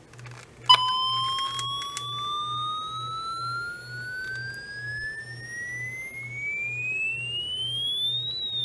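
Midland HH50 handheld weather radio's alert siren sounding on a test: one electronic tone that switches on with a click just under a second in, slides slowly upward in pitch for several seconds, then starts sliding back down near the end.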